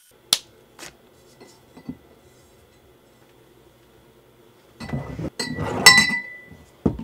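A few small clicks, then about five seconds in a short clatter of glass bottles clinking against each other, one ringing chime standing out, and a knock near the end.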